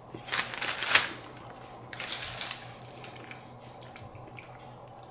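Biting into and chewing a large, thick cookie: a cluster of crisp crunches in the first second and another about two seconds in.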